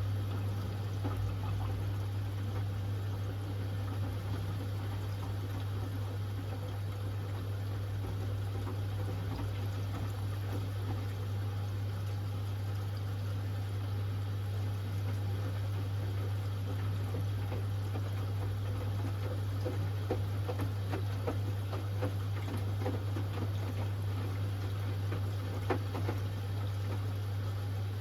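Hoover Axi 10 kg washing machine moving water through its plumbing, with a steady electrical hum under the sound of flowing water.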